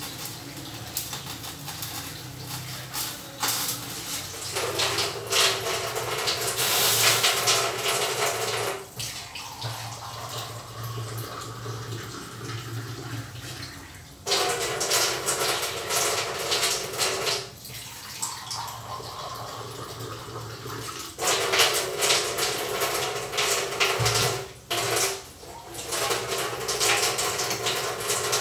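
Kitchen tap running into a sink in three spells of a few seconds each, each turned on and off sharply, with clinks of kitchenware in between.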